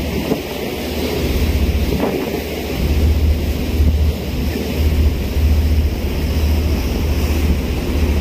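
Wind buffeting the microphone on a moving boat, a heavy low rumble that comes and goes, over a steady wash of water and boat noise.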